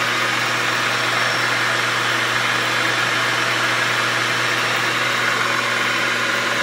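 Grizzly G4003 12 x 36 gear head lathe running with its three-jaw chuck spinning at its top speed of 1,400 RPM: a steady, loud machine whir over a constant hum.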